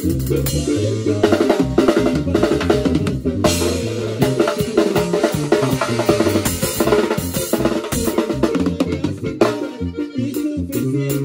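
Live band playing, with the drum kit prominent: busy snare, rimshot, kick drum and cymbal hits over keyboard and a low bass line.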